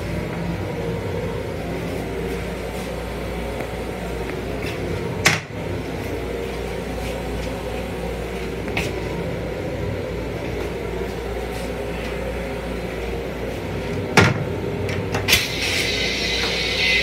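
Steady low hum of an M7 railcar heard inside its small restroom, with a sharp plastic knock about five seconds in as the toilet lid is raised, and more knocks near the end. A hiss starts just before the end.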